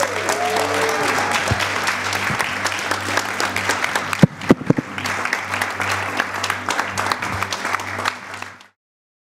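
A congregation applauding, with a few cheers early on, over steady low music from the band. A few louder sharp claps stand out about four seconds in, and the sound cuts off suddenly near the end.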